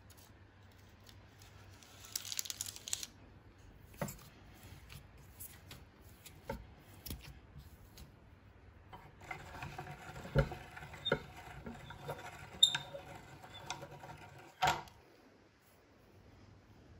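Hand-cranked Reliance metal meat grinder being turned to extrude biscuit dough, a grating, squeaky metal grind with sharp clunks for about five seconds in the second half. Earlier there is a brief rustle of parchment paper and a few light taps.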